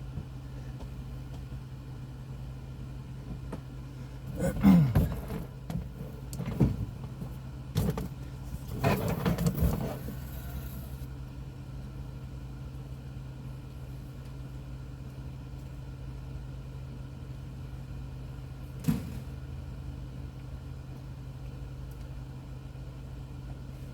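Hand work on a van's interior trim: a run of knocks, clatter and rustling for several seconds, then a single sharp click later on, over a steady low hum.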